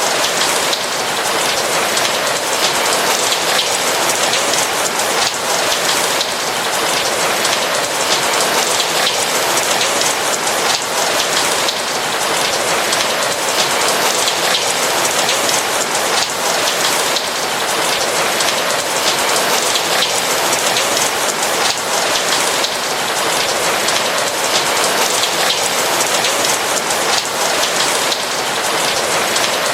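Steady rain: a dense patter of raindrops on a roof over an even hiss.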